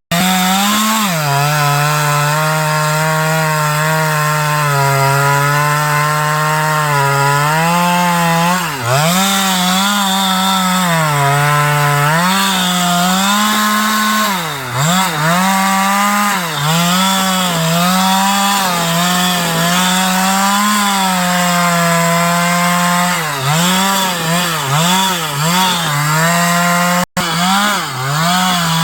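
Stihl two-stroke chainsaw running at high revs through wood, its pitch repeatedly dipping and recovering as the chain is loaded in the cut. The sound breaks off for an instant near the end.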